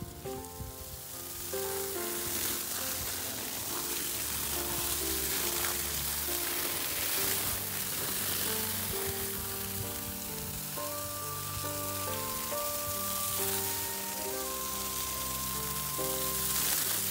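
Water from a garden hose spraying and pattering onto a rice-straw mushroom bed, a steady hiss. Background music of held notes plays along with it.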